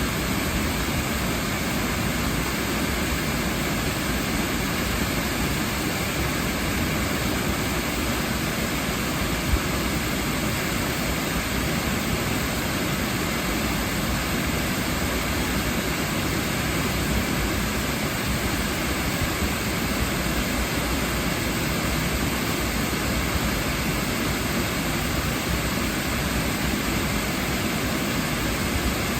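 Waterfall, a steady rushing roar of falling water that stays even throughout.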